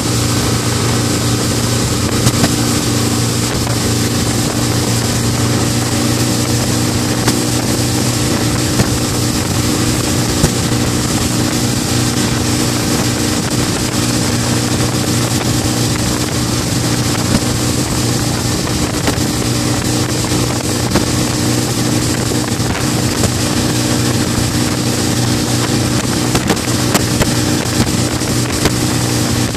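Mercury outboard motor running steadily at speed while towing, a constant engine drone, with wind noise on the microphone.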